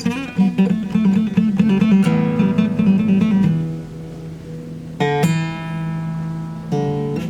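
Acoustic guitar playing: a quick run of picked notes for about two seconds, then chords struck and left ringing, with a new strum about five seconds in and another near the end.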